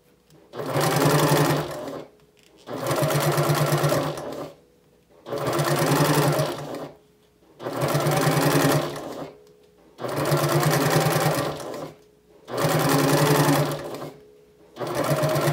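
Electric domestic sewing machine stitching down a folded cork strap in short runs of about two seconds each, stopping briefly between runs, about seven runs in all.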